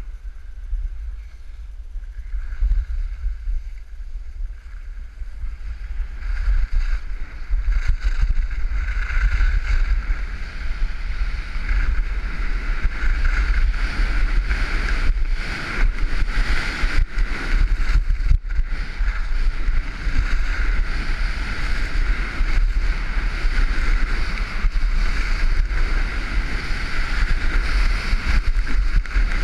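Wind buffeting a helmet-mounted camera's microphone on a fast ski descent, with the skis hissing and scraping over snow. It grows louder a few seconds in and then holds steady.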